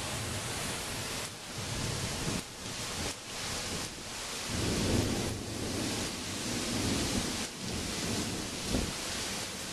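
Heavy wind-driven rain and gusting wind in a thunderstorm, with a deeper low rumble swelling from about four and a half to seven and a half seconds in.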